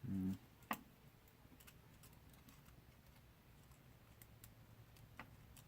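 A short hum of a man's voice at the start, then a few faint, sparse clicks and ticks of small parts being handled during drone camera repair work.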